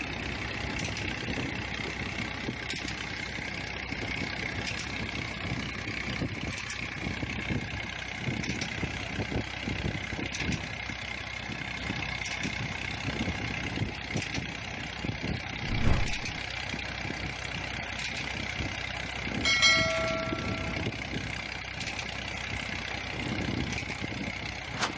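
Massey Ferguson 240's three-cylinder diesel engine running steadily under load, driving a tubewell pump through its shaft and belt pulley, with water gushing from the delivery pipe into a tank. A single thump comes about two-thirds of the way through, and a brief ringing tone follows near the end.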